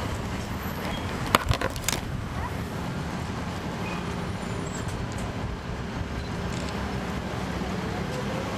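A NABI 40-SFW transit bus's Caterpillar C13 diesel engine running steadily, with a quick cluster of sharp clacks and knocks about a second and a half in.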